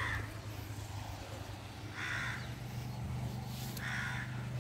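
A crow cawing three times, about two seconds apart, over a low steady hum.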